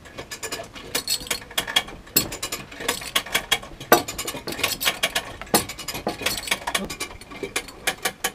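Come-along hand winch being ratcheted under a heavy load, a dense run of sharp pawl clicks with each stroke of the handle.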